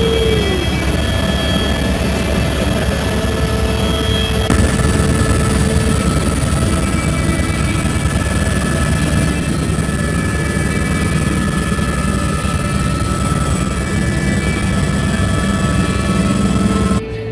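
Helicopter engine and rotor noise heard from inside the cabin in flight: a loud, steady drone with high steady whines over it. It cuts off abruptly just before the end.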